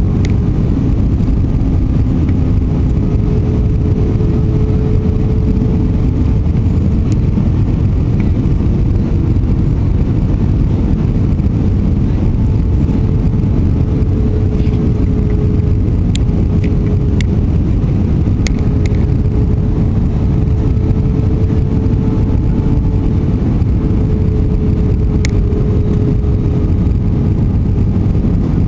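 Steady jet airliner cabin noise on approach: a low rush of engines and airflow with a faint steady whine held throughout, and a few light clicks in the second half.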